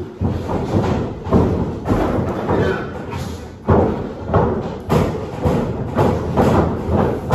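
Wrestlers' feet thudding on a wrestling ring's mat: a series of heavy thumps, coming about twice a second from about four seconds in.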